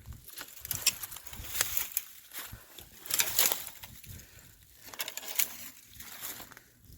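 Footsteps crunching and rustling through dry brush and dead leaves, in irregular bursts.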